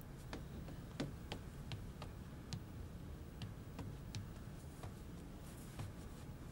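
High-heeled shoes clicking on a wooden floor: a run of light, unevenly spaced footstep clicks, about two or three a second.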